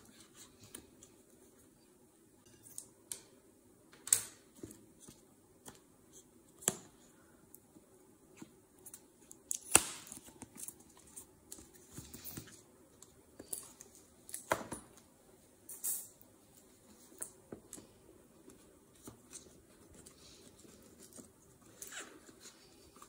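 Scissors snipping through the seal stickers on a cardboard product box, then the box being turned and handled on a table: scattered snips, taps and short scrapes, with a louder knock near the middle.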